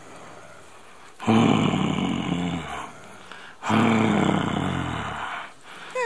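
Mountain gorilla giving two long, deep, rough rumbling grunts, one after the other with a short gap between them.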